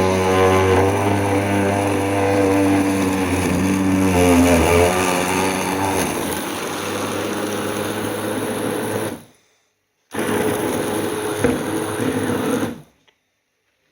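Electric blender motor running loud, its pitch wavering and dropping as it works through the load. It cuts off suddenly, starts again about a second later for a short run, then stops.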